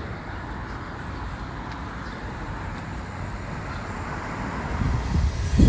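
Steady road-vehicle and traffic noise, a low rumble with hiss, growing louder with uneven low rumbling near the end.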